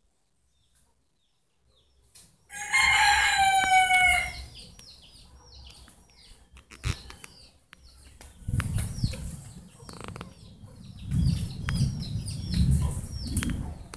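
A rooster crows once, a loud drawn-out call about two and a half seconds in, slightly falling in pitch. After it, small birds chirp over and over with short falling chirps, while bursts of low rumble hit the microphone in the second half.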